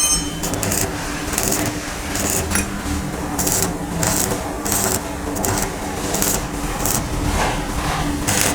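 Welding a motorcycle silencer: the welding arc crackles and hisses in short bursts, about one a second, as tack welds join the outer and inner pipes of the double-wall silencer, with a steady hum underneath.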